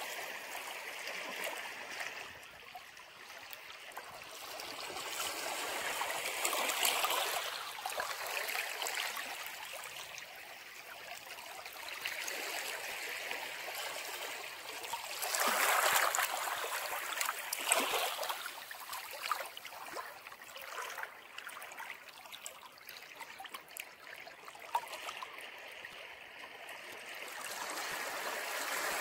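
Ocean surf washing against the shore, swelling and easing in waves, with louder surges about a quarter of the way in and again just past halfway.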